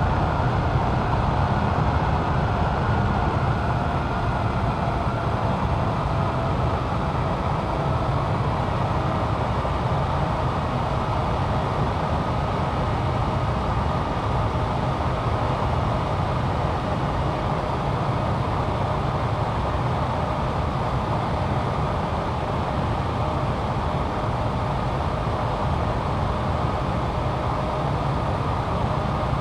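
Jet aircraft engines running with a steady, loud roar, and a faint whine that slowly falls in pitch.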